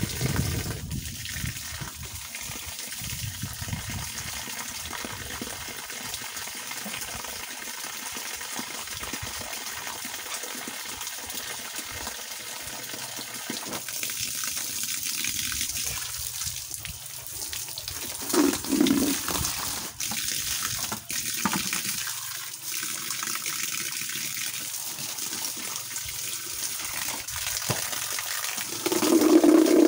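A steady stream of water pouring from a garden hose rigged as an outdoor shower, splashing down onto the grass. It gets louder near the end.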